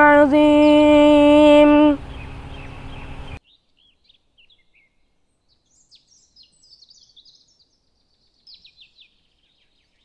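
A boy's chanting voice holds the last long note of a Quran recitation, the closing words of 'Sadaqallahul Azim', and stops about two seconds in. After that, faint, scattered bird chirps.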